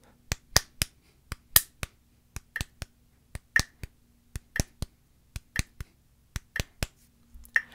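Hand claps in a sixteenth-eighth-sixteenth rhythm figure over a metronome clicking once a second at 60 beats per minute.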